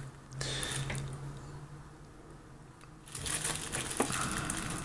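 A USB TV tuner stick and its antenna cable being handled where the stick plugs into a laptop, making rustling, scraping handling noise: a short burst just after the start and a longer one in the second half, with a small click about four seconds in. A steady low hum runs underneath.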